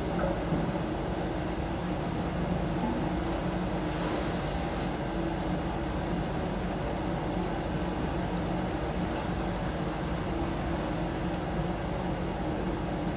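A boat's engine running steadily, a low even hum with no change in pitch.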